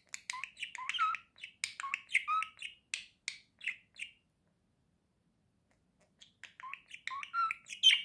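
Budgerigar singing, a quick chattering run of short chirps and warbles for about four seconds. After a pause of about two seconds it starts again, loudest near the end.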